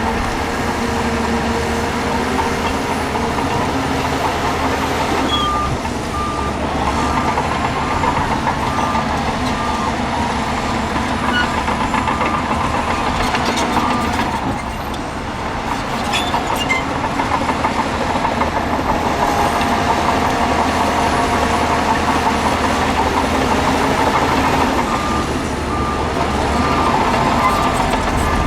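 Diesel engines of heavy earth-moving machinery running under load, with a few metallic clanks. A reversing alarm beeps steadily from about five seconds in to about halfway, and again near the end.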